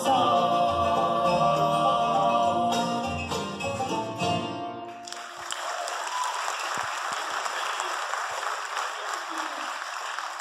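A live bluegrass band of banjo, fiddle, mandolin, acoustic guitars and upright bass ends a song with singing on a held note. About halfway through, the music stops and the audience applauds.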